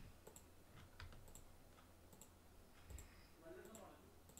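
Near silence, with several faint computer mouse clicks spread through it over a low electrical hum.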